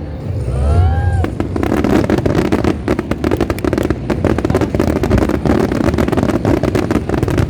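Aerial fireworks crackling: a dense, rapid crackle of many small bursts that starts about a second in and keeps going, over a low rumble.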